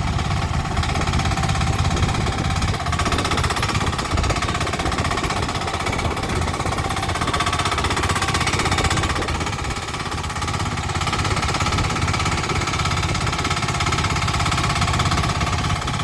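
2022 LUCLA TX10 mini-excavator's small engine running steadily: a fast, even chugging with a steady whine above it.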